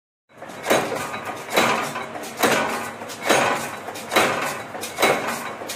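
Mechanical power press running continuously through a progressive die, with its crank-driven mechanical roll feeder advancing the strip: a loud metallic clank on each stroke, about one every 0.85 s, each dying away in a rattle.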